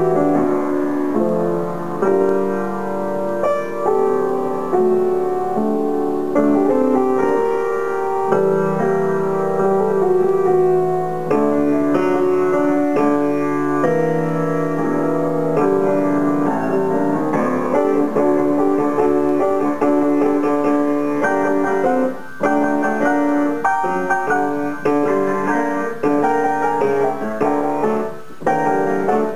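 Grand piano played solo: sustained chords under a melody line, with a couple of brief breaks between phrases near the end.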